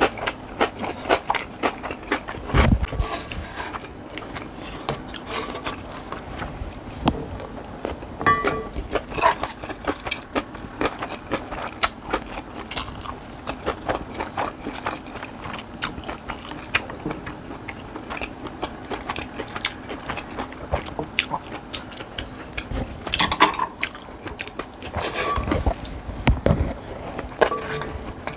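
Close-up eating sounds of a person biting and chewing bibimbap with radish salad and side dishes, with many short crisp clicks and crackles. A few heavier low thumps come near the start and near the end.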